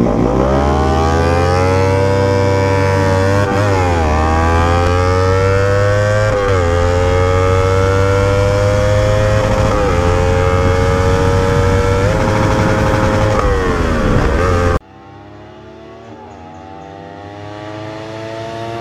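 Motorcycle engines, a Kawasaki Ninja 300 parallel twin and a modified Honda Titan 160 single, accelerating hard from a standing start, the whine climbing and dropping back at each upshift, about five shifts. About fifteen seconds in, the sound cuts suddenly to a fainter engine whose pitch slowly rises.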